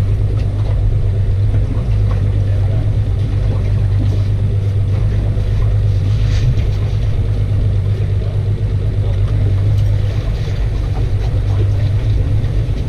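Outboard motor idling with a steady low hum.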